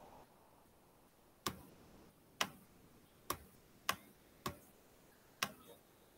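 Six short, sharp clicks, roughly a second apart, as the strokes of a handwritten word are put down on a laptop's digital whiteboard.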